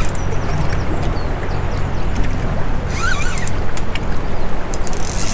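Steady low hum and rumble of a small fishing boat at sea, with a bird calling briefly about three seconds in.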